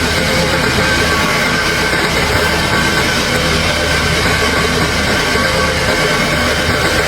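Background music, loud and steady with no breaks.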